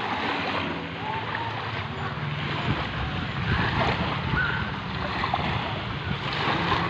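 Shallow sea water washing at the shore, with wind on the microphone and a low steady hum of a distant motor under it. Faint short high chirps come and go.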